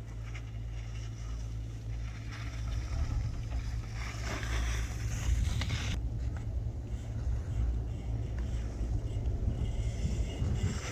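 Wind buffeting the microphone as a steady low rumble, with a hiss that swells from about two seconds in and cuts off suddenly around six seconds.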